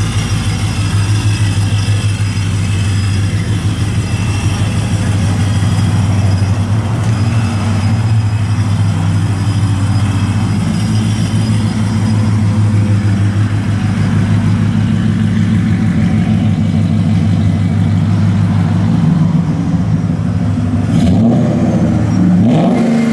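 Cammed 5.7 HEMI V8 in a RAM 1500 running through a freshly fitted Karnage custom exhaust, a steady, loud low rumble as the truck rolls slowly. The revs rise briefly near the end.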